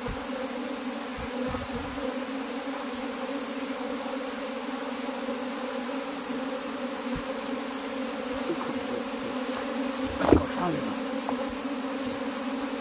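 A large mass of honey bees buzzing, a steady even hum, with a short louder bump about three quarters of the way in.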